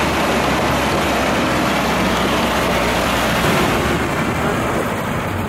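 A jeep driving along a gravel mountain track: a steady engine note under a loud, even rush of tyres on gravel and wind.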